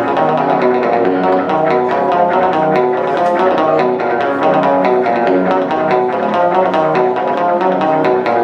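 Instrumental guitar music, loud and steady, with a dense run of plucked notes.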